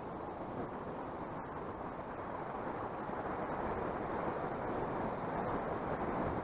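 Sea surf washing against a rocky shore, mixed with wind buffeting the microphone: a steady rush that grows slightly louder toward the end.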